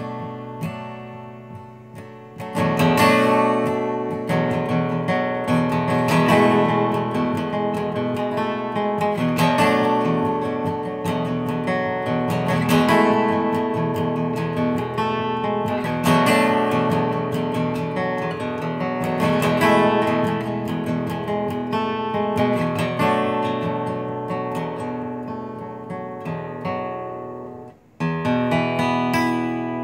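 Steel-string acoustic guitar played solo, strummed and picked chords in the instrumental close of a song. Just before the end the playing breaks off for a moment, then a last chord is struck and left ringing.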